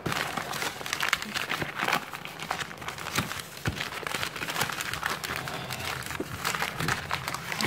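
A sheet of paper being handled and crumpled by hand on a tabletop, giving a continuous irregular crinkling and rustling.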